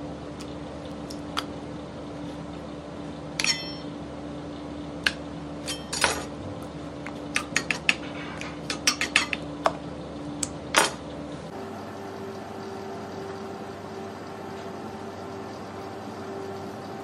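Scattered clicks and clinks of kitchen utensils, about a dozen in the first eleven seconds, a few ringing briefly, over a steady hum that shifts to a higher pitch about eleven seconds in.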